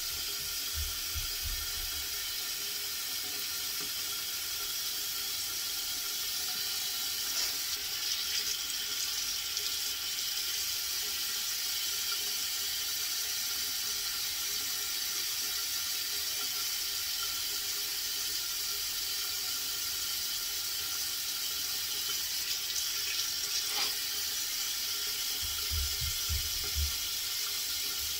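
Tap water running steadily into a sink, with a few soft low bumps near the start and near the end.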